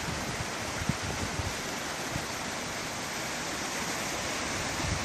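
Rushing water of a river in flood, a steady, even rush, with wind thumping irregularly on the microphone.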